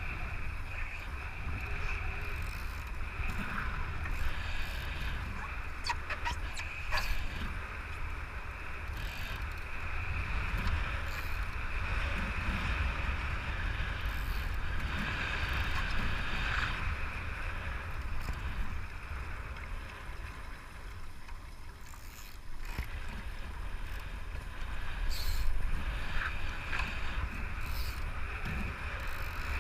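Wind buffeting the microphone with a deep, constant rumble, over a steady hiss of rushing water and spray as a foiling Moth dinghy sails. A few sharp ticks come about six to seven seconds in.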